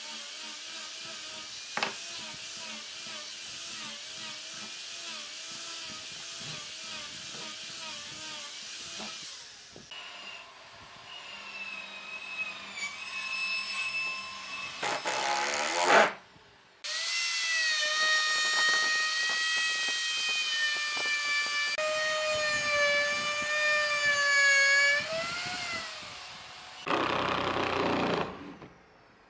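An angle grinder with a sanding disc runs steadily against the edge of a pine disc. From about a third of the way in, a Makita 18V cordless impact driver takes over, driving screws into the pine: its motor whines and rises in pitch as it speeds up. Near the end there is a short, rough, rattling burst.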